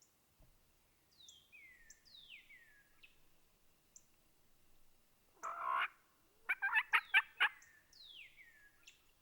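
Wild turkey tom gobbling: one rapid rattling burst of about a second, a little past the middle, just after a shorter single call. Faint falling whistled notes of a songbird come before it and again near the end.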